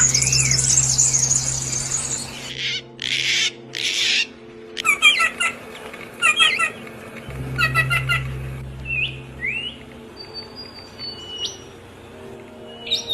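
Several songbirds chirping and calling: a fast high trill at the start, a couple of harsh raspy calls, then repeated chirping phrases and thin high whistles. A low steady drone runs underneath.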